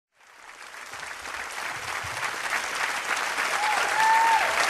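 Stadium crowd applauding and cheering, fading in from silence and growing louder, with a voice calling out over it near the end.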